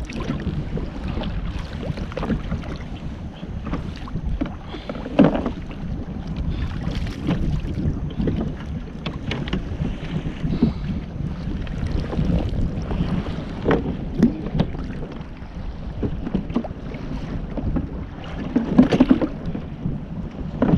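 Wind rushing over the microphone and choppy sea water against a fishing kayak, with scattered short knocks and clicks, the loudest about five seconds in and near the end.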